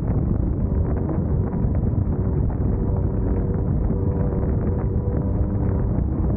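Class 1600 off-road race buggy's air-cooled VW engine running under heavy wind buffeting on the microphone, with frequent short knocks from the car over rough ground.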